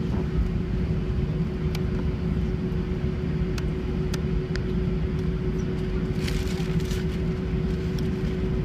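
Steady cabin noise of a taxiing Airbus A320, heard from a window seat over the wing: the low rumble of the jet engines at taxi power with a constant hum. A few light clicks and a short rustle come about six seconds in.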